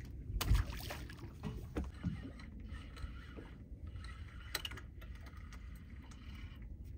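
A small fish thrown overboard splashes into the water about half a second in. Water then laps against the small boat's hull, with a few faint knocks.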